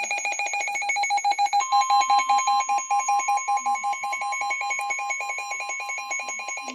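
Emergency Alert System attention signal announcing a second warning: a rapidly pulsing electronic beep, joined about a second and a half in by a steady higher tone, both cutting off abruptly near the end.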